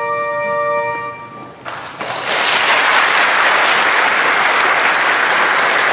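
The last held chord of the music fades out about a second in, and about two seconds in the congregation breaks into steady applause that runs on.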